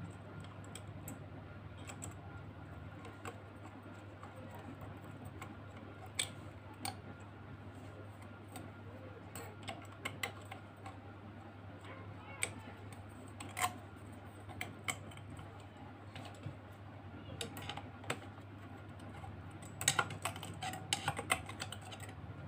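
Small scattered clicks and taps as a screw and a ceramic lamp holder are fitted by hand into a metal desk-lamp shade, with a quick run of clicks near the end as a screwdriver is brought to the screw. A faint steady low hum lies underneath.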